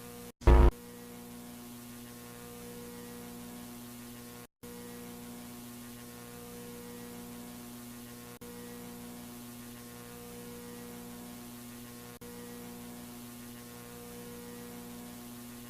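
Steady electrical hum with a stack of overtones and a faint hiss, of the kind used for broadcast dead air. A short loud burst comes about half a second in. The hum cuts out for a moment twice, near the start and about four and a half seconds in.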